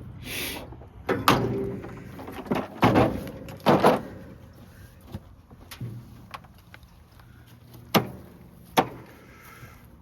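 Tools and metal parts being handled and set down: a string of separate knocks and clunks, about eight in all, with a short hiss just after the start.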